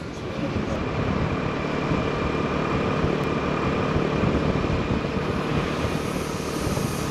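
Motor scooter riding along a road at a steady speed: continuous engine and road noise.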